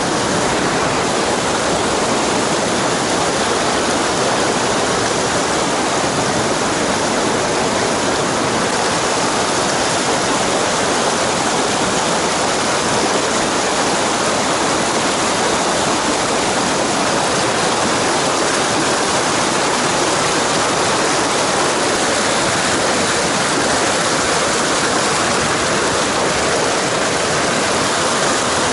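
Mountain stream rushing steadily in a strong current.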